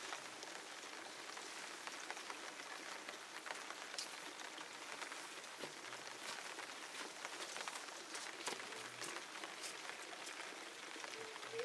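Light rain pattering steadily, with many small irregular drips and ticks.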